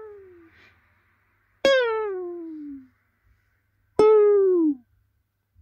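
Plucked string notes, one at a time, each starting sharply and sliding down in pitch as it fades. The tail of one note dies away, then new notes come about a second and a half in and again about four seconds in.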